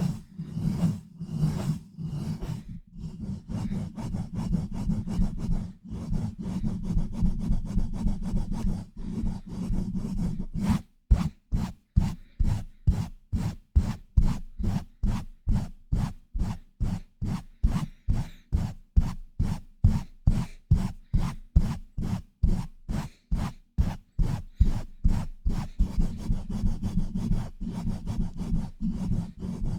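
Hands pumping and scratching directly on a microphone: fast, rough rubbing strokes. About a third of the way in, these settle into a steady rhythm of about three strokes a second, then turn back to dense rubbing near the end.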